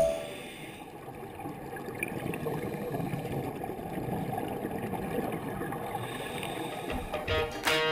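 Underwater sound heard through a camera's waterproof housing: a muffled, steady low rush of water with scuba divers' exhaled regulator bubbles. It grows a little louder about two seconds in.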